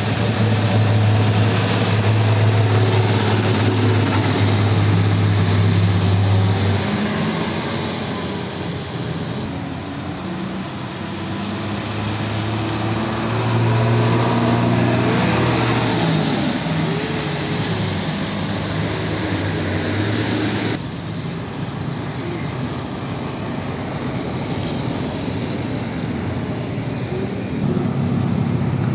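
Heavy diesel trucks passing one after another in street traffic: an old Hino cargo truck, a Mitsubishi Fuso cargo truck and a Nissan Diesel tractor unit. Each engine gives a low drone that swells and wavers in pitch as the truck goes by. The sound changes abruptly twice, about ten seconds in and again about twenty seconds in.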